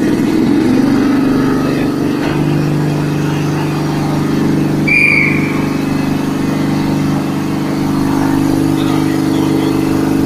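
Air-cooled reciprocating compressor driven by an electric motor, running just after start-up: a loud, steady machine hum whose pitch settles about two seconds in. A short high-pitched chirp sounds once about five seconds in.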